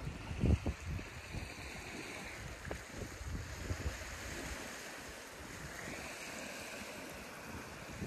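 Choppy lake waves washing onto a pebble shore, with wind buffeting the microphone. The strongest gust comes about half a second in.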